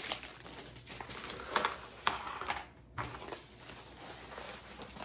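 Thick plastic dust bag rustling and crinkling in short spurts as a rolled canvas is handled and slid out of it, with a few sharp crackles.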